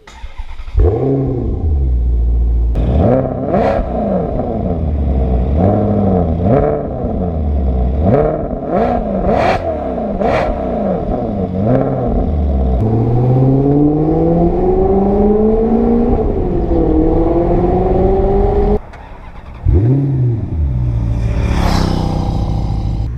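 Maserati GranTurismo Sport's 4.7-litre V8 revving hard in a series of quick blips, rising and falling, with a few sharp cracks from the exhaust between them. About halfway through comes one longer, steady climb in revs, then more short blips.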